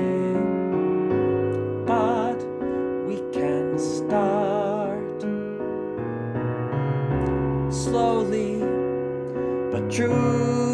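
Piano accompaniment for a musical-theatre song, playing an instrumental passage of sustained chords and a moving melody between sung phrases.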